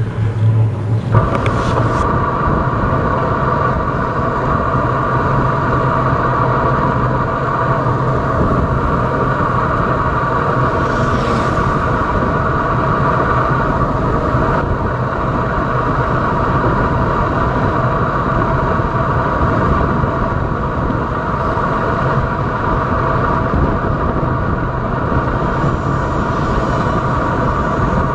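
Steady wind rumble and road noise on a mountain bike's camera rolling fast along a paved road, with a constant hum over the rush.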